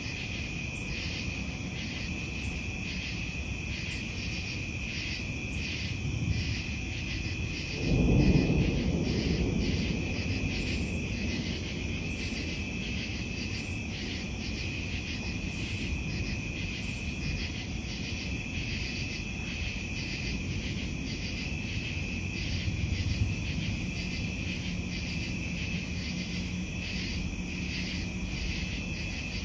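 A steady chorus of frogs and insects: a continuous high trill with a rapid repeating pulse of calls over it. About eight seconds in, a loud clap of thunder rumbles and fades over a couple of seconds, and softer low thunder rumbles come around six and twenty-three seconds.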